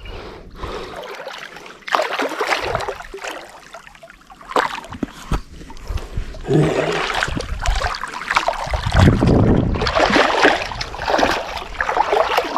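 Shallow water splashing and sloshing in irregular bursts as someone wades through it, busier from about two seconds in.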